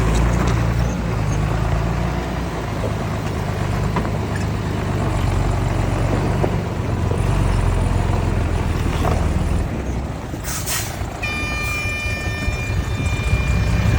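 Heavy diesel engines of earthmoving machinery running with a steady low rumble. About ten seconds in comes a short hiss, like air being let off, followed by a steady high-pitched whine near the end.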